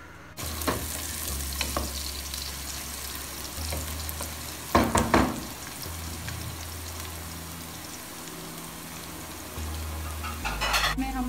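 Sliced onions sizzling as they fry in hot oil in a metal pot, with the knock and scrape of a wooden spoon stirring them. The sizzle sets in just after the start, and the loudest stirring strokes come about five seconds in.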